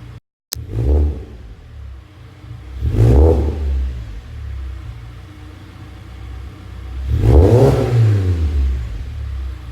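Mazda 6 four-cylinder engine with a Corksport cat-back exhaust and K&N cold air intake, blipped three times from idle and dropping back to a steady idle after each rev. The third rev is the biggest and longest, up to about 4,000 rpm. The sound cuts out for a moment near the start.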